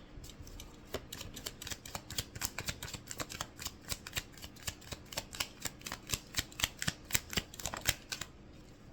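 A deck of oracle cards being shuffled by hand: a quick run of crisp card clicks and flicks, several a second, stopping shortly before the end.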